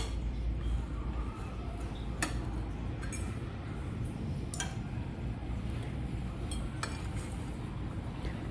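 A spoon clinking now and then against a bowl of soup, a few separate light clinks about two seconds apart, over a steady low hum.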